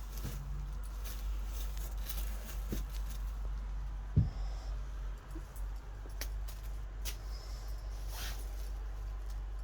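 Handling noises from unboxing a handbag: soft scratches and light knocks, with one sharper, louder knock about four seconds in, over a steady low hum.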